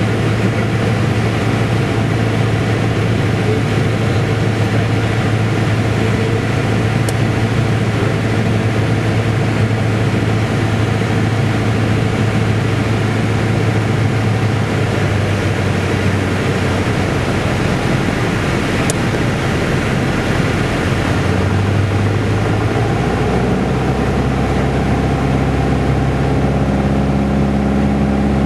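Single-engine Piper's piston engine and propeller droning steadily, heard inside the cockpit on final approach. The engine note changes about 23 seconds in.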